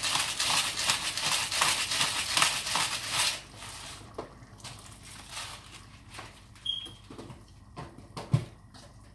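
Hand pepper mill grinding black pepper, a rapid crunching for about three seconds that then stops. A few light clicks follow, and a single sharp knock near the end.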